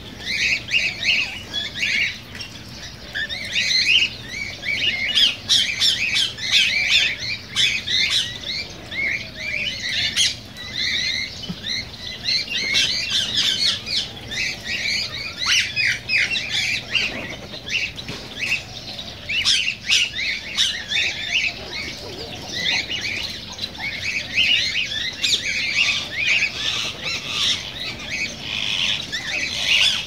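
A flock of aviary birds chirping and squawking without pause, many short calls overlapping at once.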